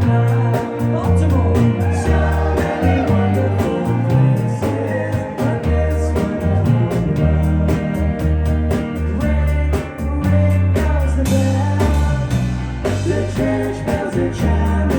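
A rock band playing a song live, with a singing voice over a steady drum beat and a heavy bass line.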